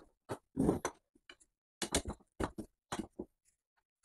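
Quick, irregular clicks and knocks of the metal frame poles of an elevated dog bed being handled and fitted together, about eight in all.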